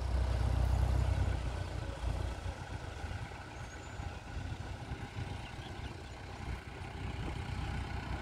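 Diesel tractor engine running at moderate revs as the tractor reverses with a laser land leveller in tow, a little louder for the first two seconds.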